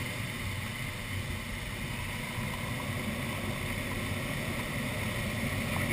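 Steady rush of air over the canopy of an unpowered ASK-21 glider, heard from inside the cockpit during a split-S. It grows a little louder near the end as the glider picks up speed pulling through the half loop.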